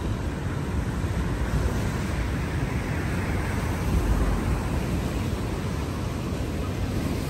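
Steady rush of sea surf breaking on the shore, with wind buffeting the microphone.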